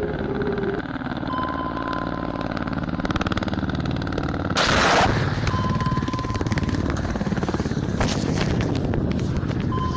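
Ka-52 helicopter's rotors chopping under weapons fire, with a loud rushing burst about halfway through and a sharp crack near the end.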